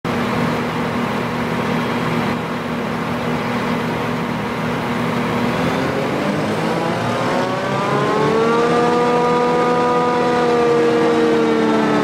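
Claas Jaguar 970 self-propelled forage harvester running under load. Its engine and driveline give a steady drone that rises in pitch about halfway through, then holds at a higher, slightly louder pitch.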